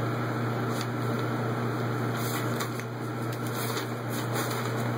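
Steady low mechanical hum of a running motor, with a few faint rustles about halfway through.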